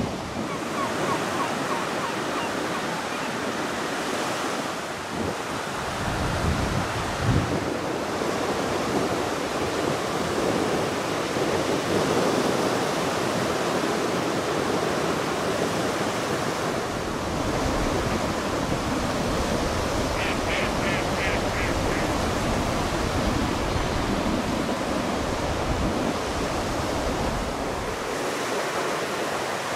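Baltic Sea surf washing steadily onto a wide sandy beach, with wind gusting on the microphone now and then. About twenty seconds in, a bird gives a brief run of quick high calls.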